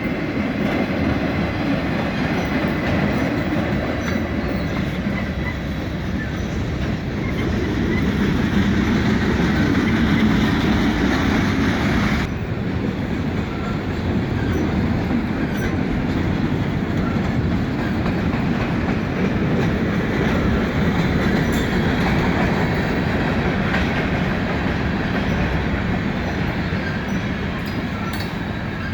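Freight train cars rolling past: a steady rumble and rattle of steel wheels on the rails, with no horn. The higher part of the sound cuts off abruptly about twelve seconds in, then the rumble carries on.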